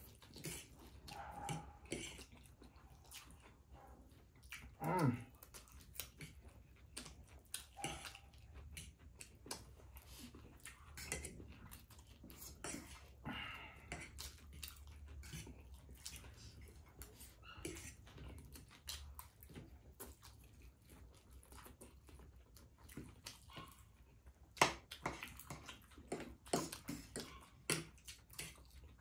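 Metal forks clicking and scraping on plates while two people eat chowmein fast, with slurping and chewing. There is a short pitched slurp about five seconds in, and a sharp clink of fork on plate near the end, the loudest sound.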